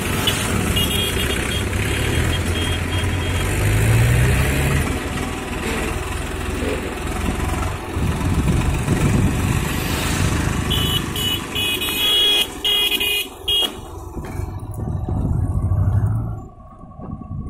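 Tractor diesel engines running as tractors pulling threshers drive past, with a vehicle horn honking in several short blasts a little past the middle.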